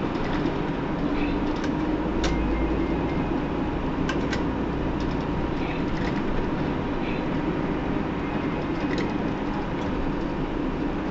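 Hino PDG-KV234N2 city bus heard from inside the cabin: a steady engine and road noise rumble. A few sharp clicks or rattles come through, the clearest about two and four seconds in.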